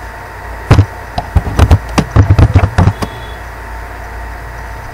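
Computer keyboard being typed on: a quick run of about a dozen sharp key clicks lasting about two seconds, starting just under a second in, over a steady low hum.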